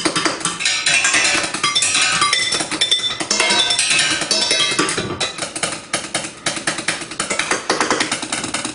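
Chopsticks drumming fast strokes on kitchen pots and pans, with a metallic ringing from the struck pans at times.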